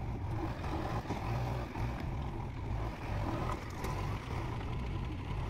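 JCB 3DX Eco backhoe loader's diesel engine running as the machine drives over the dirt, a steady low drone.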